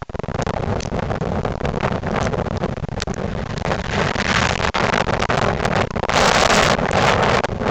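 1998 Ford Crown Victoria Police Interceptor's 4.6-litre V8 running with an exhaust leak as the car drives by. The exhaust builds up from about halfway through and is loudest near the end.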